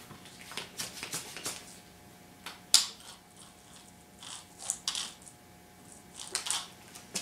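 Short hisses of air let out of a basketball through an inflation needle and pressure gauge, in about ten brief spurts, with a sharp click about a third of the way in. The ball is being let down to 1 PSI.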